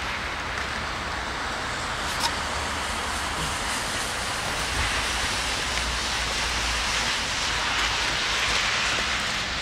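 Distant 2TE116 twin-section diesel locomotive approaching with a freight train: a low rumble under a steady, even hiss, the rumble growing a little stronger through the middle.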